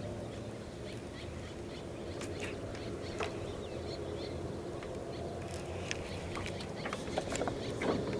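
Scattered short bird chirps and calls over a steady low hum, with the chirps coming more often in the second half.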